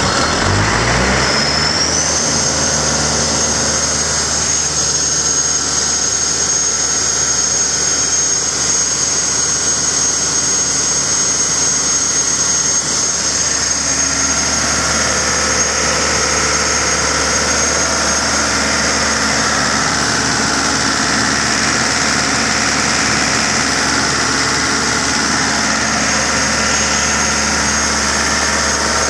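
Caterpillar 3054 four-cylinder diesel engine just after starting. It spins up over the first second or so, then runs steadily, with a thin high whine over it.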